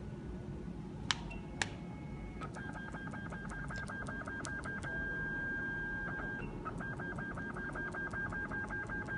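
3D HIFU facelift machine beeping: two short clicks with beeps, then a fast train of same-pitched beeps, about four or five a second, each with a sharp click. The train is typical of the handpiece firing a line of ultrasound shots. About halfway through a single beep holds for about a second, then after a short pause the fast beeping resumes.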